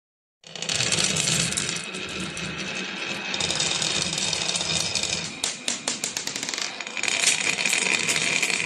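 Many marbles rolling and clattering down a marble run, a dense stream of rapid clicks that starts suddenly about half a second in.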